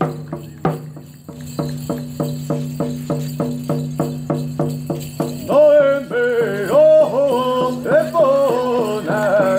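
Hoop dance song: a drum beating steadily, about four beats a second, then a high chanting voice coming in about halfway and carrying the melody over the drum.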